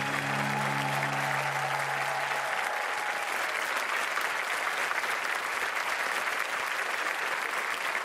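Studio audience applauding steadily. Sustained low music chords under the applause fade out about two and a half seconds in.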